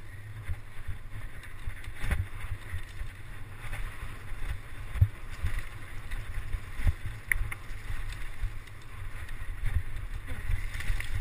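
Wind noise on the microphone of a mountain bike moving fast over a rough dirt trail. Irregular knocks and rattles come from the bike jolting over bumps and ruts.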